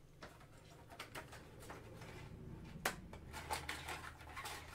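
Trading-card packs and a cardboard box being handled: faint rustling and soft taps, with one sharper click about three seconds in.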